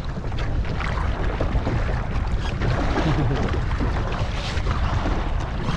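Wind buffeting the microphone as a steady low rumble, with water splashing and lapping around a kayak as it rides boat wakes.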